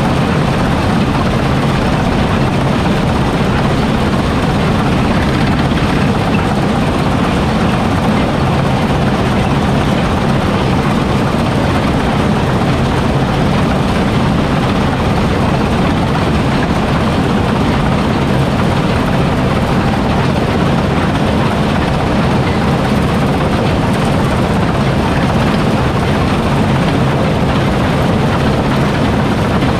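Heavy farm machinery running at a steady, constant drone throughout harvesting, the engine and threshing noise unchanging in level.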